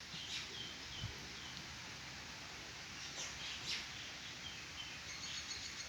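Faint bird chirps, a few short notes that fall in pitch, over a steady background hiss.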